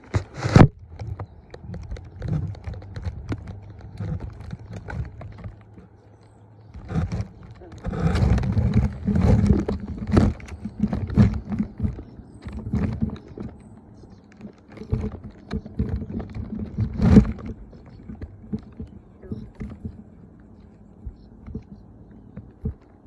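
Handling noise from a phone being moved with fabric rubbing over it: irregular knocks, scrapes and rustles, busiest for a few seconds about a third of the way in, with a sharp knock right at the start and another about three-quarters through.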